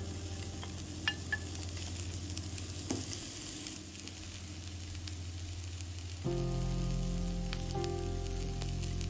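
Sliced onion sizzling in hot olive oil in a frying pan, with a few light taps in the first three seconds as the slices are tipped in. Soft background music with held notes underneath, louder from about six seconds in.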